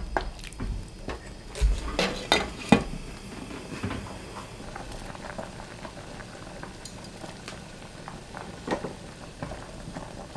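Pot of zucchini gochujang stew bubbling at a boil, while a spoon stirs it and knocks against the stainless steel pot, with a cluster of clinks two to three seconds in and another near the end.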